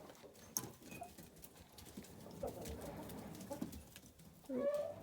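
Chickens making soft low clucks, with a louder hen call about four and a half seconds in, and light clicks of movement.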